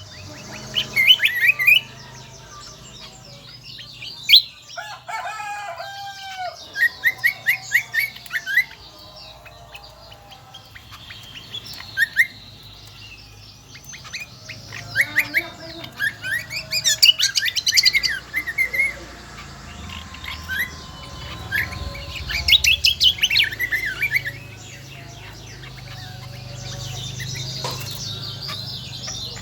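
Kecial kombo (cucak kombo) singing shrill phrases of rapid high chirps, in repeated bursts with short pauses between.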